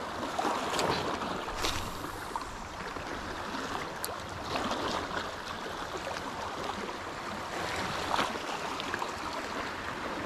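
Small waves lapping against shoreline rocks: a steady wash of water with a few short splashes.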